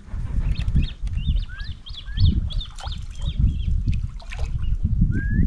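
Birds singing, with quick high chirps and a few short rising whistles, over a loud low rumble.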